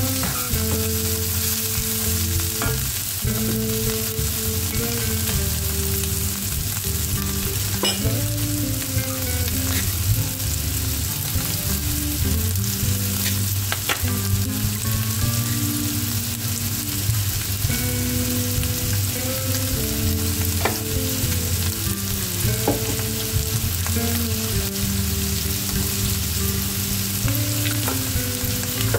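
Split peas and minced meat sizzling in oil in a nonstick pan, with a spatula scraping and stirring through them at times. There are a few sharp clicks of the spatula against the pan.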